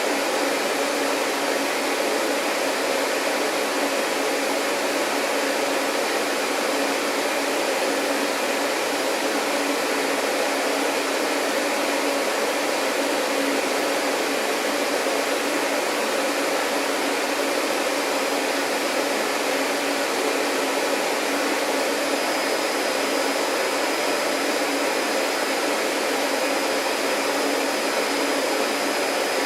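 Vacuum cleaner running steadily with an even, unchanging whoosh and motor hum; a faint high whine joins in about three-quarters of the way through.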